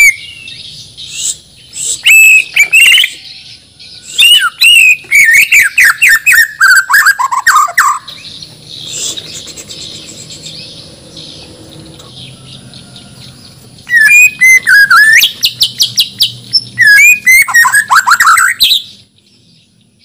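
Borneo white-rumped shama (murai batu) singing in loud bursts of whistled phrases and rapid trills, many notes falling in pitch, with a pause of several seconds in the middle. The song stops about a second before the end.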